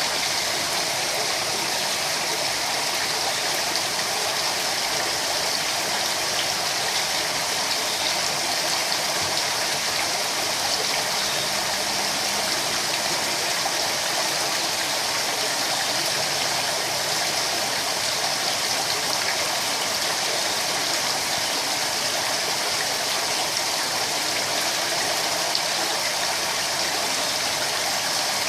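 Water running steadily into a koi pond, an even rushing splash with no change.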